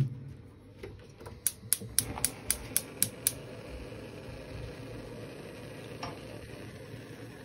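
Gas stove's electric igniter clicking eight times, about four a second, until the burner lights; then the steady hiss of the gas flame, with a light knock about six seconds in as a copper cezve is set on the grate.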